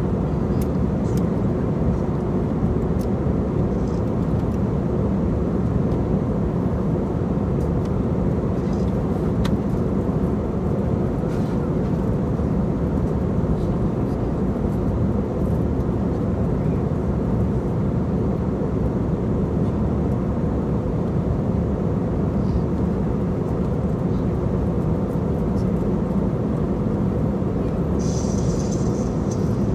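Steady roar of an airliner in flight, heard inside the cabin: engine and airflow noise, deep and even. A brief higher hiss shows near the end.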